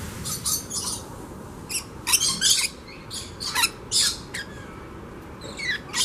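Rainbow lorikeets calling: short, shrill squawks in quick clusters, with a brief lull before more calls near the end.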